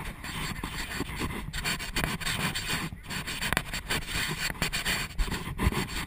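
A person panting hard while carrying a teammate on their back at a jog, with wind rumble and irregular knocks from the jolting steps on the body-worn camera's microphone.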